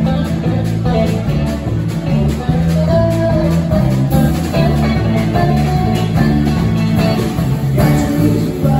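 Live four-piece rock band of electric guitar, acoustic guitar, electric bass and drum kit playing steadily through an instrumental stretch of the song.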